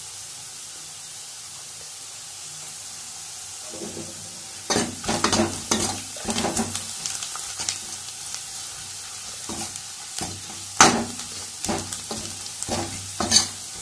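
Sliced onions and spices sizzling in hot oil in a metal kadhai, a steady hiss. About five seconds in, a metal ladle starts stirring, scraping and clanking against the pan again and again, with the loudest knock about eleven seconds in.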